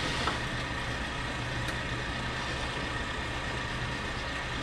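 Boat engine idling: a steady low hum that runs on without change.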